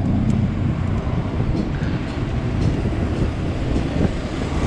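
Steady low rumbling rush of wind on the microphone and road noise while cycling along a city street among motor traffic.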